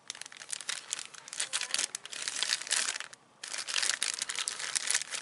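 Clear zip-lock plastic bag crinkling as it is handled and turned over in the hands, broken by a short pause about three seconds in.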